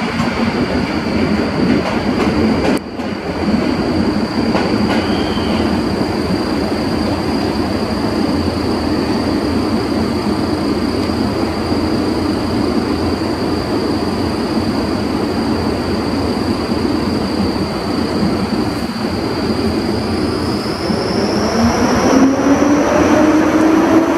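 EU07 electric locomotive with a steady high whine over a low rumble; near the end the whine rises in pitch and a second rising whine joins it as the locomotive starts moving off with its double-deck coaches.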